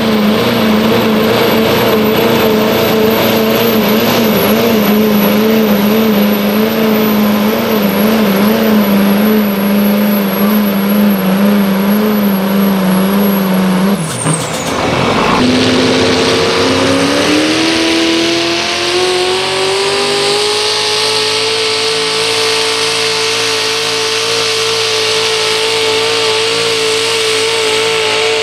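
Diesel pulling pickup's engine held at high revs under load, steady with a slight waver, over a faint steady high whine. About halfway it cuts off abruptly, and a second pulling pickup's engine revs up over a few seconds and then holds steady at full throttle.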